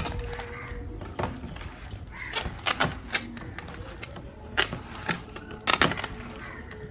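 Raw fish pieces being mixed by hand with spice powder in a stainless steel bowl: wet squelching with irregular sharp clicks of fish and fingers against the steel, bunched in a few quick clusters.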